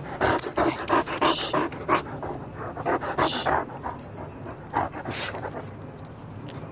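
Large dog panting close to the microphone, quick rhythmic breaths about three a second that die away about halfway through.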